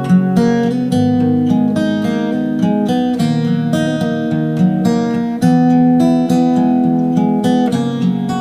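Background music: an acoustic guitar strummed and plucked in a steady, gentle rhythm.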